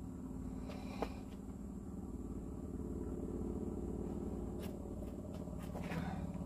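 A motor running steadily with a low hum, with a few sharp knocks over it, the clearest about a second in.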